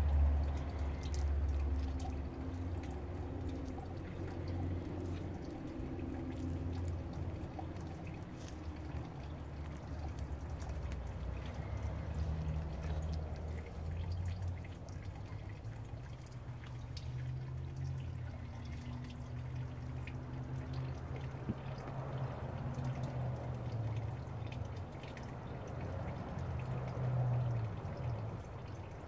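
Water trickling and pouring over a steady low hum.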